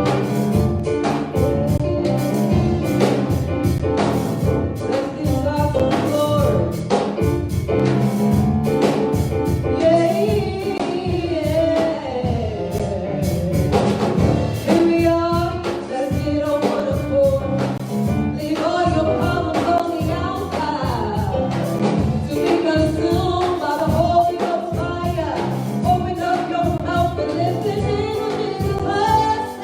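Gospel music: a group of voices singing over a band with a steady drumbeat.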